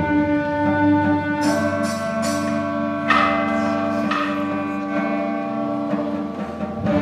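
School wind ensemble (concert band) playing: held wind chords with several struck percussion accents between about one and four seconds in.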